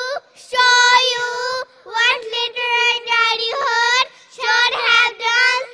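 Young children singing into a microphone: several short phrases of held notes on a fairly steady pitch, with brief breaks between them.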